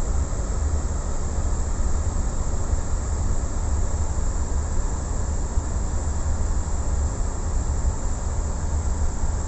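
Steady low rumble in the cockpit of a Boeing 777-200 as it is towed, with the APU running and supplying power.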